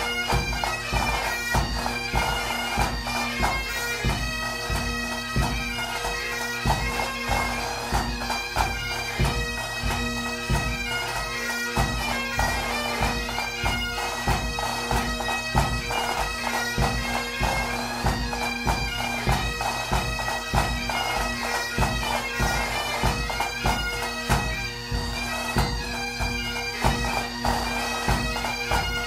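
Pipe band music: bagpipes playing a march melody over steady drones, with a regular drum beat underneath.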